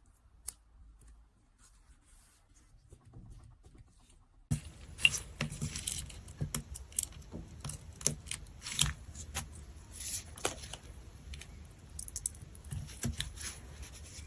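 A squishy stress toy being handled close up: a few faint clicks, then from about four and a half seconds in, dense, irregular sticky crackling and crinkling.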